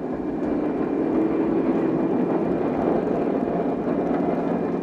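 A steady mechanical drone of engines running, even and unbroken, with a faint held tone in it.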